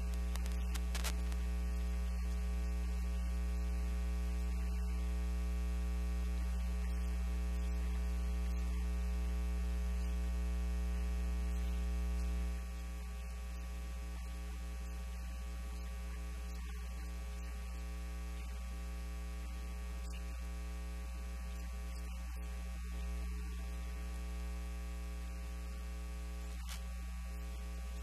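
Steady electrical mains hum in the recording, a low buzz with many overtones that covers everything else. It drops a little in level about twelve seconds in.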